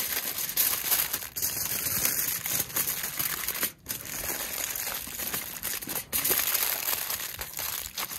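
Crinkling and crumpling, a dense crackly rustle with many small ticks and a couple of brief pauses.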